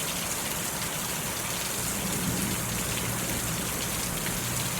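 Steady thunderstorm rain falling and splashing.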